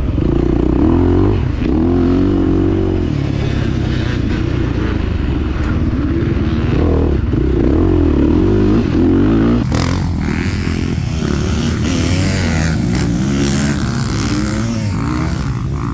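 Motocross bike engine revving up and down repeatedly as the rider works the throttle around the dirt track, heard close up. About ten seconds in, the sound switches to motocross bikes heard from beside the track.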